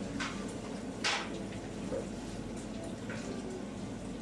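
Restaurant kitchen background: a steady low hum with water running, and two short hisses, one just after the start and one about a second in.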